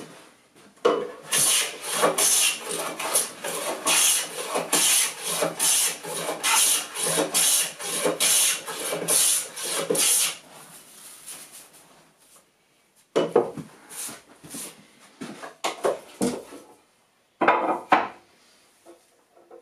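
Metal hand plane taking shavings off the edge of an oak board held in a wooden leg vise, in quick repeated rasping strokes, about two a second. The strokes stop about ten seconds in, and after a pause a few shorter scrapes and wooden knocks follow.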